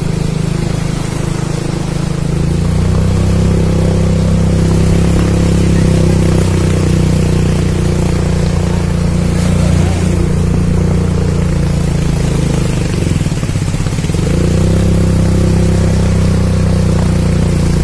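Motorcycle engine running steadily while riding through shallow floodwater. It opens up about two and a half seconds in, drops in pitch briefly around thirteen seconds, then picks up again, with a steady hiss underneath.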